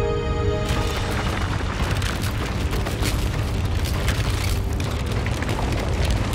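Sustained musical tones give way, less than a second in, to a steady, deep rumbling roar with crackling: a collapsing lava dome of hot rock breaking into a rock avalanche and ash cloud, a pyroclastic flow.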